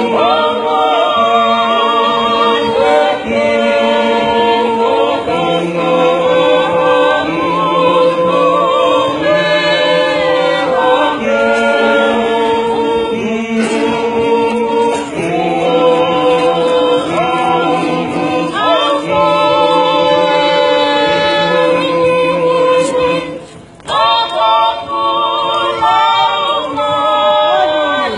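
Tongan church choir singing unaccompanied in several-part harmony, holding long chords. The singing breaks off briefly about three-quarters of the way through, then comes back in full.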